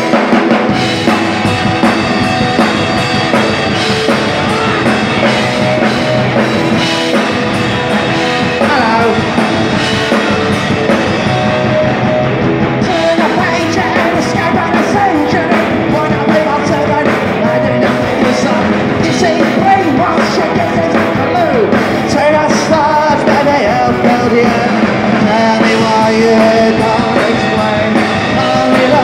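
Live punk rock band playing loud: electric guitar, bass guitar and drum kit, with a male lead singer coming in about a third of the way in.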